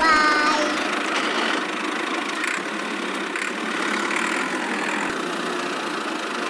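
Steady engine-like running noise as the miniature toy tractor drives along towing its loaded trolley, with a short, slightly falling whistle at the very start.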